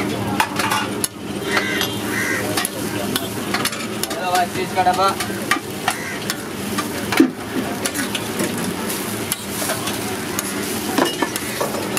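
Food sizzling on a hot flat iron griddle while a metal spatula scrapes and clicks against the plate as the bhurji is stirred and heaped, with a sharper knock about seven seconds in.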